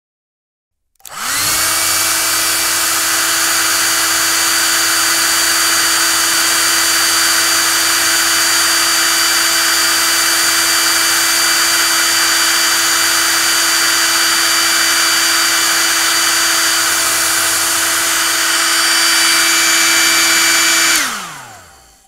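Hair dryer switched on about a second in, its motor whine rising quickly to a steady pitch over a loud rush of blown air. Near the end it is switched off and the whine falls away as the motor spins down.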